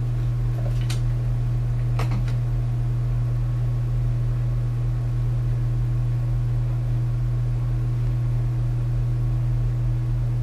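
Steady low hum from the 3D printer's cooling fan in its vented base, with two light clicks about one and two seconds in.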